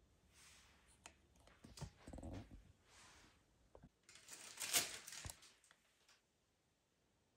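Handling noise at a work desk: a few light clicks and knocks among soft rustles. The loudest is a rustle about five seconds in.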